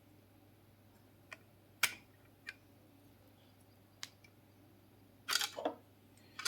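Speaker mesh of a small Bluetooth speaker being pried off with a sharp tool: a few scattered light clicks, then a short burst of scraping clicks about five seconds in, over a faint steady hum.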